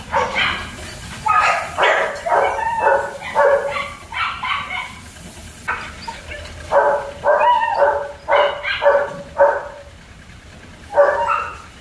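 German shepherd puppies barking and yipping in quick bouts of short, high calls, with a lull in the middle and a last few yips near the end.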